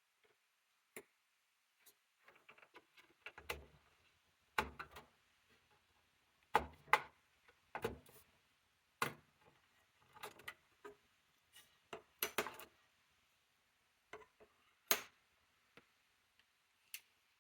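Parts of an HP M01 small desktop PC being handled and taken apart: irregular clicks and knocks of plastic and metal, several with a dull thump, scattered with short pauses between them.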